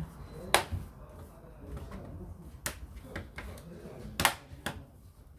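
A handful of sharp plastic clicks and snaps from a Lenovo IdeaPad 300 laptop's case and parts being fitted together during reassembly, spaced irregularly, with the loudest about four seconds in.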